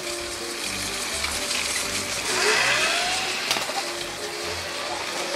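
Motorised Lego cargo train running along plastic Lego track: a steady mechanical whirring and rattling of its motor and wheels.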